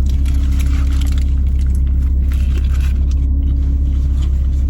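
Steady low rumble, like a vehicle's engine and road noise, with a few faint clicks and rustles over it.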